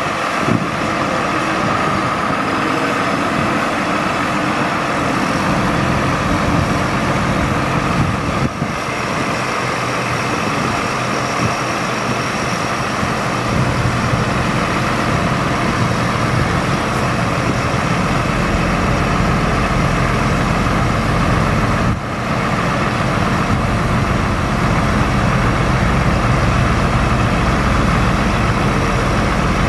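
Ford F-Series truck engine running steadily while the National N80 crane's hydraulics move the boom. The low rumble grows heavier about halfway through, with a short dip twice.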